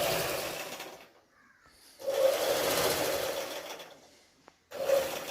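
Usha electric sewing-machine motor driving a manual tailoring machine, run in three bursts by pressing the foot pedal. It runs for about a second at the start, for about two seconds in the middle, and starts again near the end, each burst dying away as the pedal is released.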